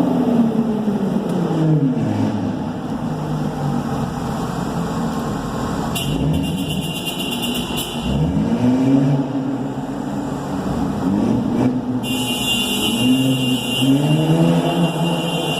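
Audi 80 Cabriolet engine through a loud straight-piped exhaust with glass-pack and cherry bomb mufflers, revved up and let back down several times while driving.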